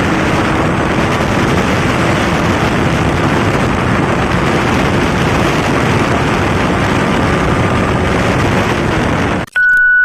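Yamaha MT-15's single-cylinder four-stroke engine running without its exhaust silencer, a loud, steady, rough exhaust rattle. It cuts off near the end and a steady high beep follows.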